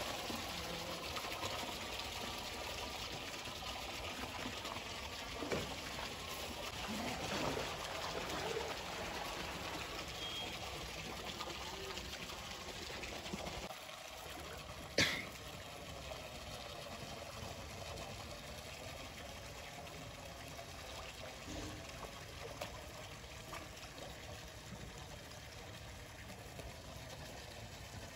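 Pool water trickling and sloshing as a hippo slides off the ledge into its pool and swims. A brief sharp sound about halfway through is the loudest moment.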